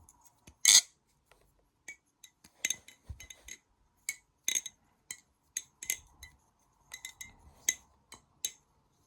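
Metal balisong (butterfly knife) being handled, its handles and latch clicking and clinking against the blade's tang and pins. The sharp clicks come irregularly, about one or two a second, with the loudest near the start.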